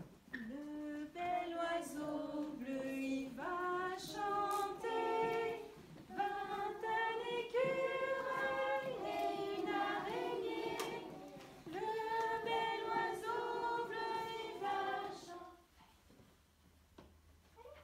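A group of women and young children singing a song together without accompaniment, with long held notes. The singing stops a little before the end.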